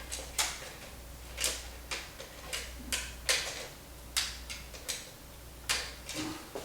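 Irregular sharp clicks and light knocks, about a dozen, from the opened metal chassis of a stereo amplifier being handled and turned on the bench. A steady low hum runs underneath.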